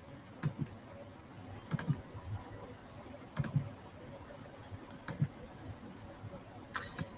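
Computer keyboard and mouse clicking as dimensions are entered in design software: sharp clicks, mostly in quick pairs about every second and a half, over a faint steady hum.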